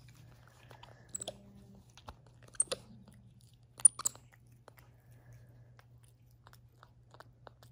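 White-faced capuchin monkey crunching and chewing a dry monkey biscuit: scattered short crackles, the loudest about four seconds in, over a faint steady low hum.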